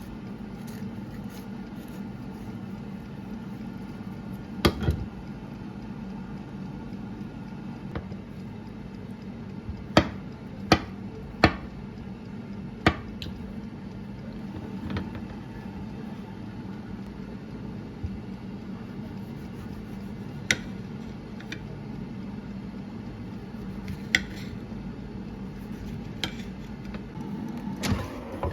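Kitchen sounds: scattered sharp clinks and knocks of dishes and utensils over a steady low hum.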